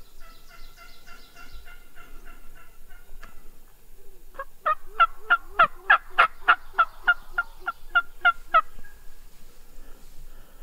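Turkey calling: a soft run of quick repeated notes, then, about four seconds in, a loud series of some sixteen sharp notes at about four a second, lasting about four seconds.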